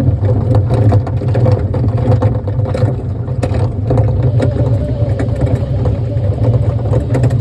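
Kiddie ride-on train running: a loud, steady low drone from its motor with scattered clicks and rattles from the moving train.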